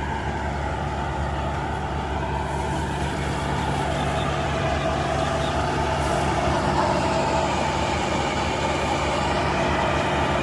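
Heavy diesel farm machinery engine running steadily under load, getting a little louder over the first few seconds.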